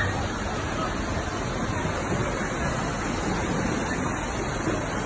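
Tsunami floodwater rushing through a street: a steady, even rushing of water.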